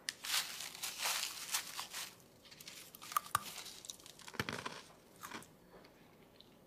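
Crunching bites into a crispy fried chicken drumstick: a run of crackly crunches that dies away near the end.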